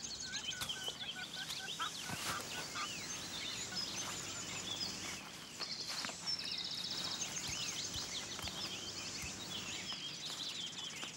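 Small songbirds chirping and twittering, many short high calls overlapping, with a brief rapid trill about five to six seconds in.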